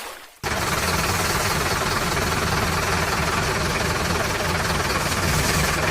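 Engine running steadily with a low rumble, cutting in abruptly about half a second in after a brief silence.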